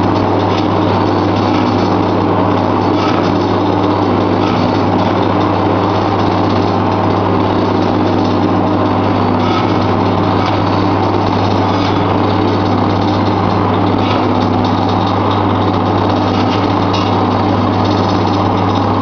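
Commercial double-drum meat shredder running steadily: a constant loud motor hum with a dense mechanical drone from its counter-rotating drums, and a few faint ticks.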